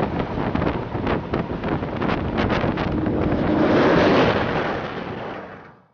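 Strong wind buffeting the microphone: a rough, rushing noise with irregular gusty thumps, swelling about four seconds in and then fading out near the end.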